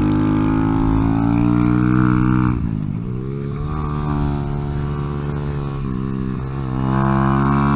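Kawasaki Z125's single-cylinder four-stroke engine running hard under load on track. About two and a half seconds in the revs fall away, two brief dips in revs follow around six seconds, and near the end the revs climb again as the throttle opens.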